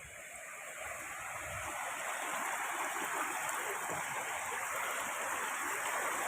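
Waterfall: a steady rush of falling water that grows louder over the first couple of seconds, then holds.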